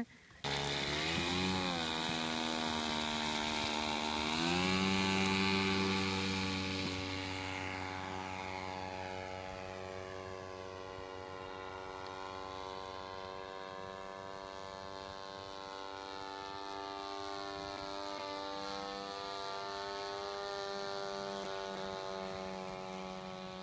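Ohlsson & Rice Compact III two-stroke gasoline engine on an RC airplane, running with its propeller. It revs up about four seconds in, as for takeoff, then drones steadily with slow rises and falls in pitch as the plane flies.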